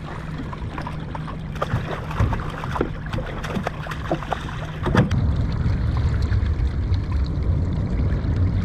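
Water splashing with small clicks and knocks as a halibut on a stringer is lowered over the side of a kayak into the water, ending in a sharper splash about five seconds in. After that, wind buffets the microphone with a steady low rumble.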